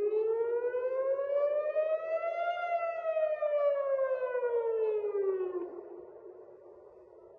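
Air raid warning siren wailing to alert of an incoming missile: its pitch rises to a peak a couple of seconds in, falls away again, then fades out near the end.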